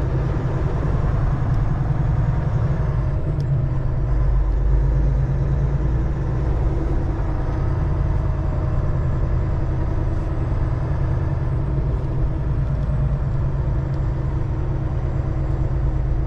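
Semi truck's diesel engine running steadily at low speed, heard from inside the cab: a low, even drone with a regular firing pulse.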